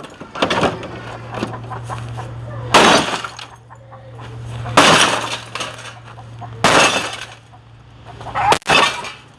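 Sledgehammer blows smashing a CRT television: about four heavy hits roughly two seconds apart, each a crash of breaking plastic and glass, with debris clattering after it.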